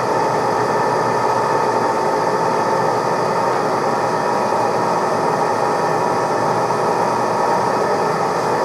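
TOS SN63B lathe running under a heavy high-feed roughing cut, a carbide insert turning a metal wheel hub: a steady mechanical drone with a constant whine in it and no let-up.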